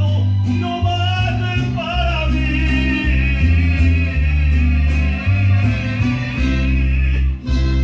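Music with a sung vocal melody over loud, heavy bass notes and a steady beat.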